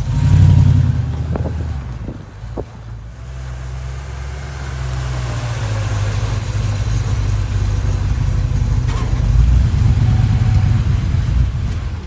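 1977 Chevy C10 pickup's engine and exhaust running at low speed as the truck moves slowly, with a low rumble. It is loudest right at the start as the tailpipe passes close, dips briefly, then builds steadily again as the truck rolls in alongside.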